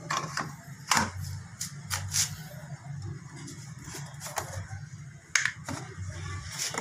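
Handling noise from a plastic gasoline jug being picked up and its cap worked: a few sharp clicks and knocks, the loudest about five seconds in, over a low steady hum.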